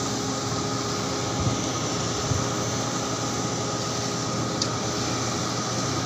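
Steady drone of heavy shipboard machinery, with a few steady tones running through it. Two faint low knocks come about a second and a half and two seconds in.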